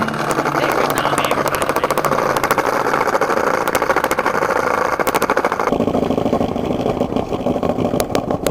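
Skateboard wheels rolling over brick pavers: a rough rumble with fast clicking as the wheels cross the joints between the bricks. The sound turns duller about six seconds in.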